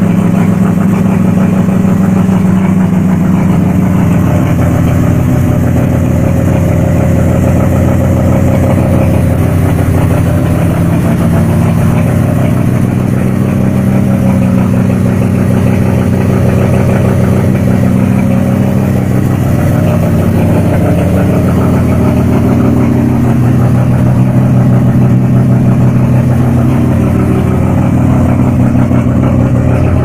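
Rotary (Wankel) engine swapped into a Suzuki Samurai, running steadily at idle with its pitch wavering slightly now and then.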